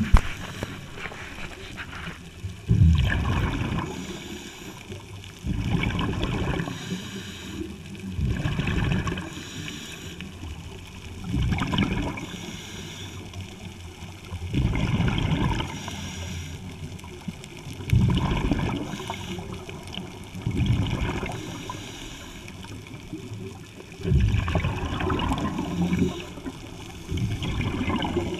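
Scuba regulator breathing heard underwater: a rumbling gush of exhaled bubbles every three seconds or so, with a quieter hiss between them.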